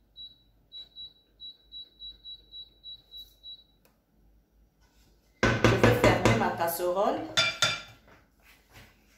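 Glass-top electric hob's touch controls beeping: a run of quick high beeps, about four a second, as the power is stepped up to heat the pot. About five seconds in comes a loud clatter of metal cookware, a pot lid and dishes being handled.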